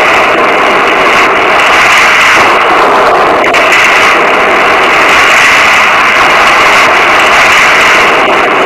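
Steady, loud rushing noise of heavy rain, with no music.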